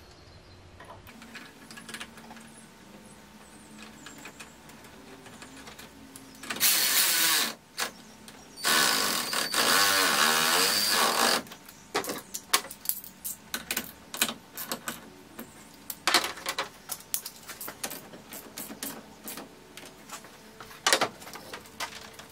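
A handheld power tool running in two bursts, about a second and then nearly three seconds, its pitch shifting slightly, followed by scattered clicks and light knocks of tools and parts being handled.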